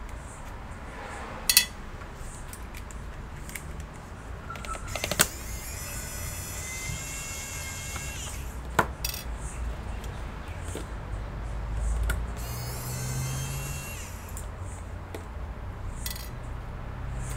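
Small metal tools and parts clicking and clinking while a laptop is worked on by hand, with three sharp clicks and two short stretches of light metallic rattling.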